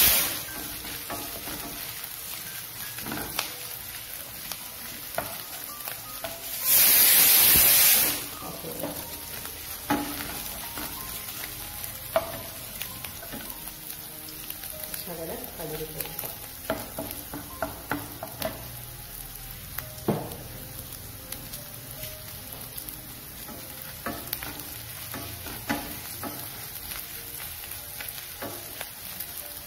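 Chopped garlic, ginger and green chillies sizzling in hot oil in a non-stick frying pan, with a spatula stirring and scraping in light, scattered taps. About seven seconds in there is a loud burst of hiss lasting about a second.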